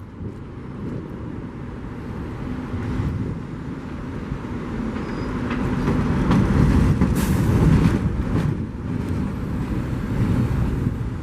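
New York City subway train running past on the rails: a steady rumble that builds to its loudest about seven seconds in and then eases off.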